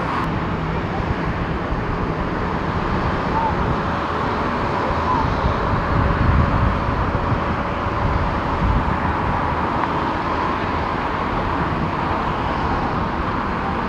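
Distant jet engine noise from an Airbus A350-941's Rolls-Royce Trent XWB engines at low thrust as the airliner rolls on the ground: a steady rush with a faint whine, and a low rumble that swells briefly midway.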